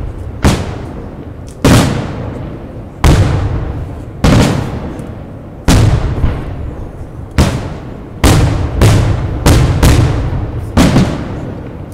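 Aerial firework shells bursting in quick succession: about a dozen sharp booms, each trailing off in a rolling echo, spaced a second or so apart at first and coming faster in the second half.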